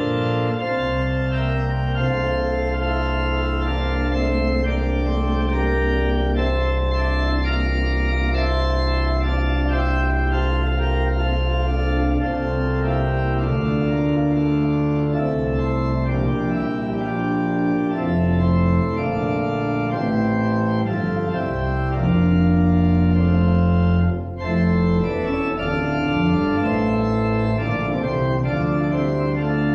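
Pipe organ playing slow, sustained chords over a long-held low pedal note that changes partway through, with a brief break in the sound near the end.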